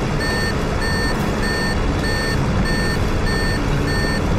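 Aircraft engine drone heard inside a fighter-plane cockpit, with a short high electronic beep repeating at an even pace, about every two-thirds of a second.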